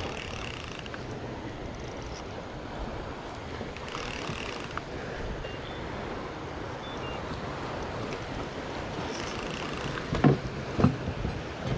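Steady wind noise on the microphone over open water, with a few sharp knocks near the end.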